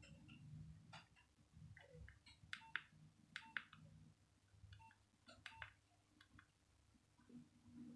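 Nokia 1202 keypad being pressed: faint, irregular key clicks, some in quick pairs, each with a short key beep.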